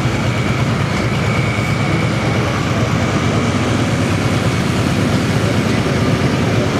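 Hot Farm class diesel pulling tractor's engine running loud and steady at high power, a dense, even noise with no breaks.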